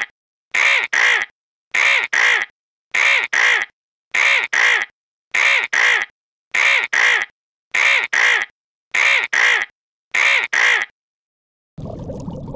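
A harsh two-note animal call, the same pair of short calls repeated about every 1.2 seconds, nine times, with silence between, and stopping about 11 seconds in. A steady noise starts near the end.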